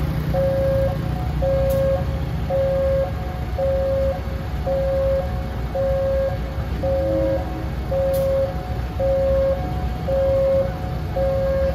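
Railway level-crossing warning alarm beeping steadily, about one beep a second, over the low rumble of an idling diesel engine.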